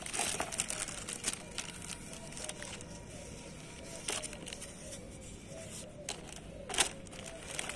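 Crinkling of a clear plastic poly bag and rustling of fabric sports gloves being handled and tugged apart, with scattered sharp crackles; the loudest crackle comes near the end.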